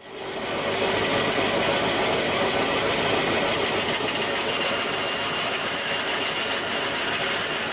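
A handheld power tool running steadily as it removes a section of plywood, building up over the first second.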